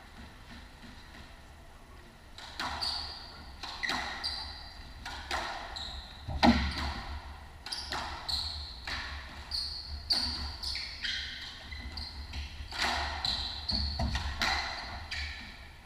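A squash rally starting a couple of seconds in: the ball cracks repeatedly off the rackets and the court walls, and the players' shoes squeak in short high squeals on the hardwood floor.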